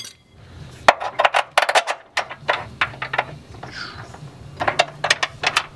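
Ratchet and socket clicking in short, irregular runs of sharp metal ticks as an OEM bolt is run into the car's frame, over a faint low hum.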